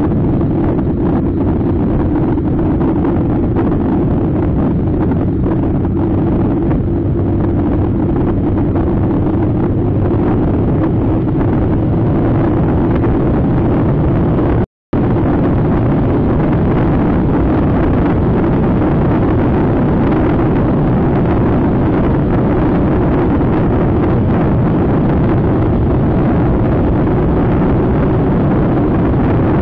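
Motor scooter under way at a steady speed: the engine runs with a steady drone under heavy wind buffeting on the microphone. The sound cuts out for an instant about halfway through.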